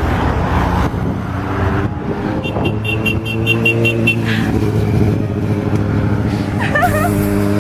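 Road traffic passing: cars and a motorcycle going by, with engine and tyre noise.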